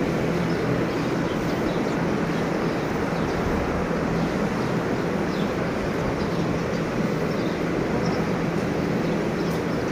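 Large industrial ventilation fans running in a livestock shed: a steady rush of moving air with a low, even motor hum.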